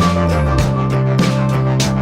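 Background music: a steady beat with sustained bass and guitar notes.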